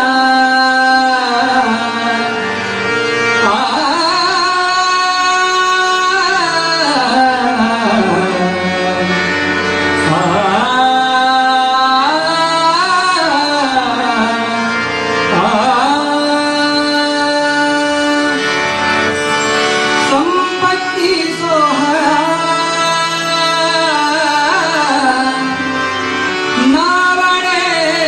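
A Marathi devotional abhang sung by a bhajan singer with tabla accompaniment. The singer holds long notes that bend and slide between pitches, in phrases of a few seconds each.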